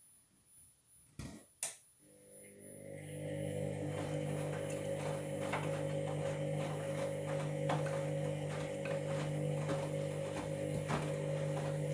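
Washing machine starting up: two clicks, then about two seconds in a steady hum with several tones comes in and builds over the next two seconds, holding steady after that. The owner hears a grinding in it that they take for worn drum bearings.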